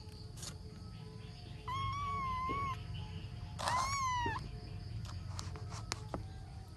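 Young ginger kitten meowing twice: a high, even meow about a second long, then a louder, shorter one that rises and falls in pitch.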